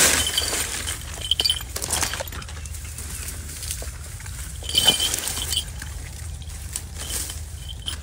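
Dry grass, twigs and brush rustling and crackling in irregular bursts as someone pushes through undergrowth, loudest at the start and about five seconds in, with short light metallic jingles in several of the bursts.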